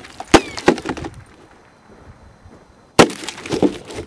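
Rapid semi-automatic fire from a Smith & Wesson M&P15-22 .22 LR rifle, with the bullets striking dirt and targets close to the microphone. The shots come in two quick strings of about five sharp cracks each, one just after the start and one about three seconds in.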